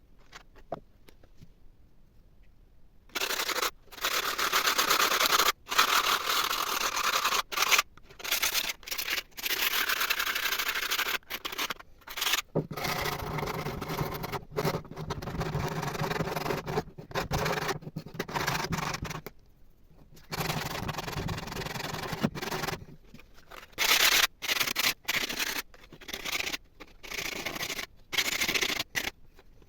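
Abrasive scraping on the old coffee grinder's parts, in long stretches that start and stop abruptly many times.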